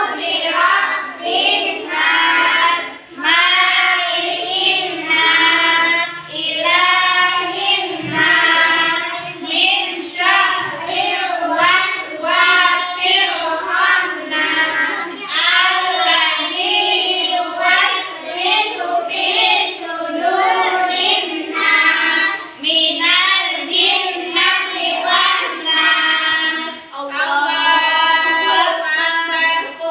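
Group of young children reciting Islamic prayer aloud in unison, in a sing-song chant that runs in short phrases with brief breaks between them.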